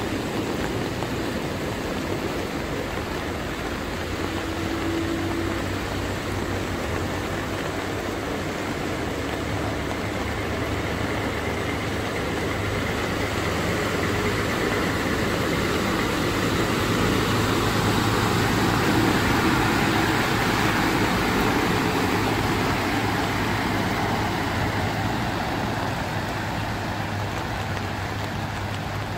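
Box truck driving through deep floodwater, its engine running under the wash of water pushed off its wheels. It grows louder as it passes close by, then fades, over a steady wash of rain and running water.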